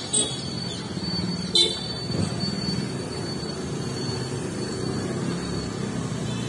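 Roadside traffic noise: a steady low hum of passing vehicles, with one short, sharp, loud sound about one and a half seconds in.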